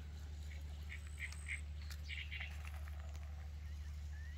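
A duck quacking faintly: four short calls about a second in, then a quicker cluster a little after two seconds, over a steady low hum.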